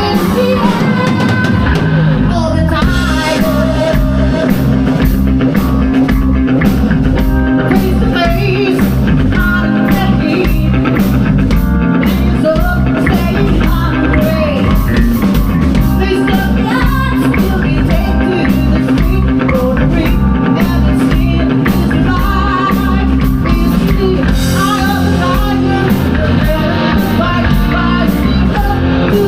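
Live rock band playing: drum kit, electric guitars and bass with a singer, loud and continuous.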